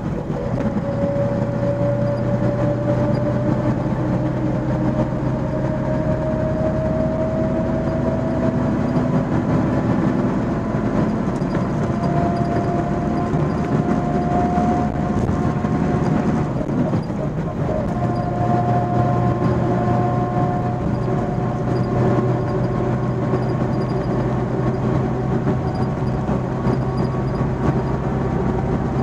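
MAN 16.370 HOCL coach on the move, heard from inside the passenger cabin: a steady diesel engine and road noise with a whine that climbs slowly in pitch as the coach picks up speed. The whine breaks off briefly about halfway through, then carries on.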